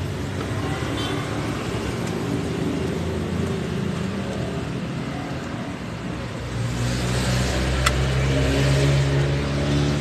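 A motor running with a low, steady, engine-like hum that grows louder about six and a half seconds in, with a single sharp click near the eight-second mark.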